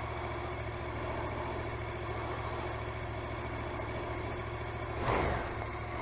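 Yamaha Tracer 700's 689 cc parallel-twin engine running steadily at idle after a hard start on a dead battery, with a brief louder swell that falls in pitch about five seconds in.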